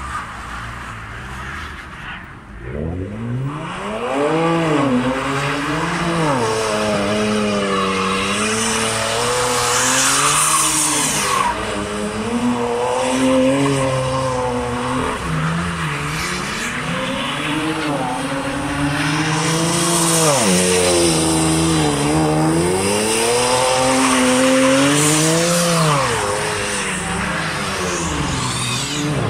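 BMW E90's engine revving up and down again and again as the car drifts, starting about two and a half seconds in, with tyre noise from the wheels spinning and sliding on snow.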